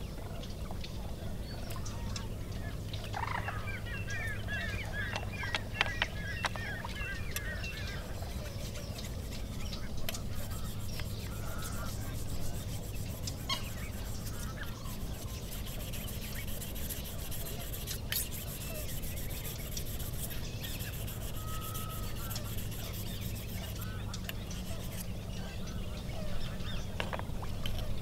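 Steady low hum of a farm irrigation pump's engine running. A bird calls in a fast series of notes about three to eight seconds in, with scattered clicks and small splashes from hands working in a pot of water.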